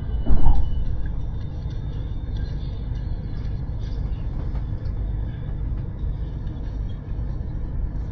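Steady low rumble of a high-speed train in motion, heard from inside the passenger car. About half a second in there is one brief, loud thump.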